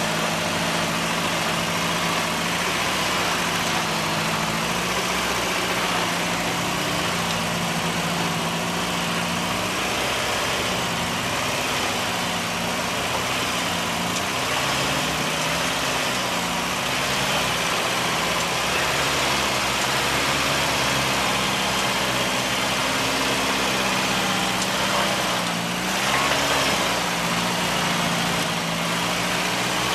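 Off-road vehicle's engine running at low speed. Its pitch rises and falls slowly, as when crawling over rough ground.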